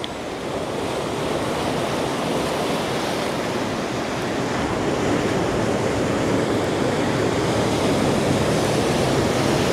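Ocean surf breaking and washing over the rocks and boulders of a rocky shore, a steady rushing that swells gradually louder.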